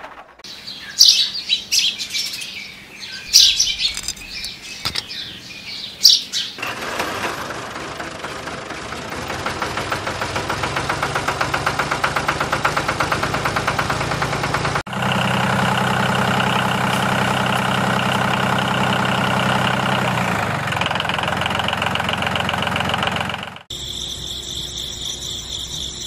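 Birds chirping for the first six seconds. Then the small motor of a homemade miniature tractor and wheat thresher runs with a steady, slightly pulsing whir, changing abruptly twice where the shots are cut.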